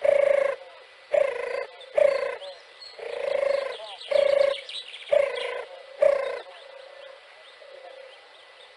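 European turtle dove calling: a run of short, low coos about one a second, one of them longer, then a few fainter coos in the last couple of seconds.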